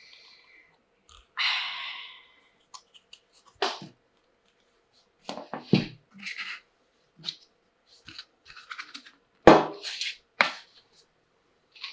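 Small plastic toy tea-set pieces being handled: an irregular scatter of clicks and clacks, the loudest about nine and a half seconds in, with a short rustle a little over a second in.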